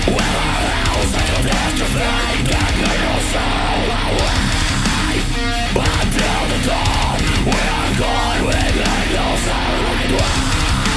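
Loud rock music driven by guitars, playing without singing.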